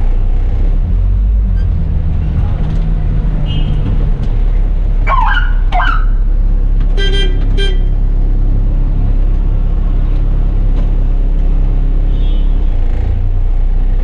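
A bus's diesel engine idling steadily, heard from the driver's cab while the bus is held up. About five seconds in there are two short gliding squeals, then two short horn toots in quick succession.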